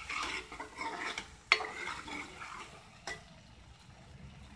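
Steel ladle stirring and scraping a thick green chilli masala paste in an aluminium pan, the paste frying until the oil separates. A sharp metal clack about a second and a half in, the loudest sound, and a lighter knock about three seconds in; then the scraping stops and only a faint sizzle is left.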